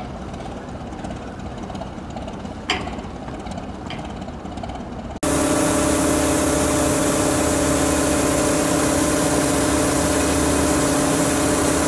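Boat diesel engines rumbling at idle, with two short sharp clicks. About five seconds in the sound jumps to a much louder steady machine drone with a constant hum, over the hiss of gravel pouring onto a barge's heaped load.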